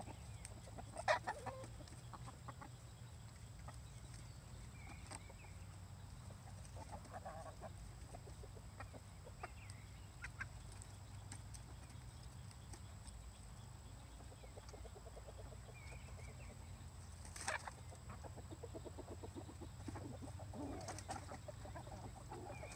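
Hens clucking softly and now and then inside a chicken tractor, with two sharp taps, one about a second in and one near the end.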